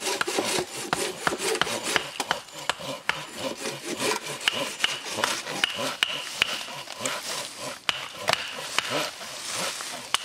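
Hand saw cutting through a wooden log for firewood, in a steady run of even back-and-forth rasping strokes.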